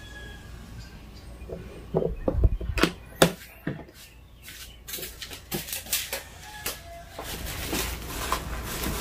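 Sonifer SF-6043 waffle maker's plastic lid being handled and shut: a few sharp clacks and knocks, then lighter handling clicks, with a steady hiss setting in near the end.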